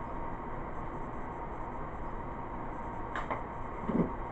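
Handling of a small cardboard battery box over a steady background hiss: a short click a little after three seconds, then a dull thump near the end as a hand comes down on the wooden tabletop.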